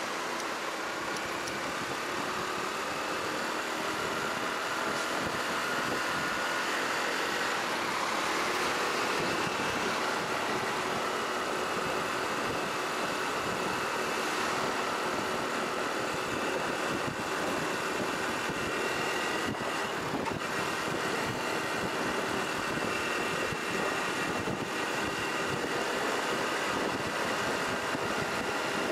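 Riding noise from a Honda Cross Cub 110 motorcycle: a steady rush of wind and road noise with the faint hum of its small single-cylinder engine, its pitch drifting slowly with speed.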